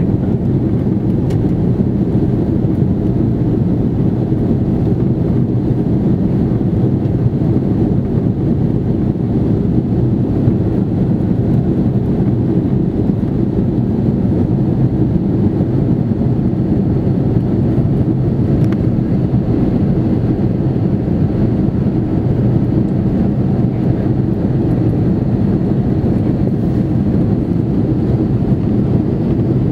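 Steady low rumble of engine and cabin noise inside an Airbus A330-300 airliner, unchanging throughout.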